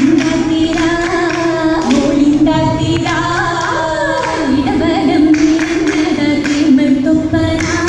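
Oppana song sung in chorus by female voices, with rhythmic hand clapping keeping the beat.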